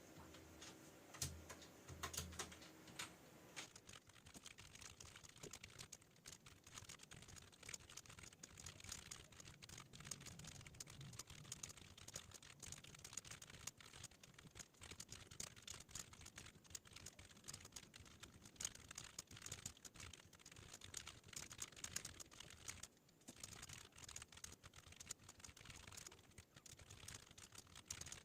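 Fast typing on a computer keyboard: a dense, irregular stream of key clicks with a short pause about two-thirds of the way through.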